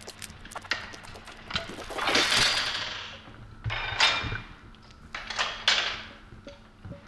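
Rigid inflatable boat crossing choppy water: three loud rushes of water spray, about two, four and five and a half seconds in, with sharp knocks between them.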